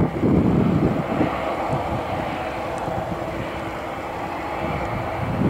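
Boeing 737-800's CFM56 jet engines running at taxi power as the airliner rolls past: a steady rushing whine. Wind gusts on the microphone in the first second.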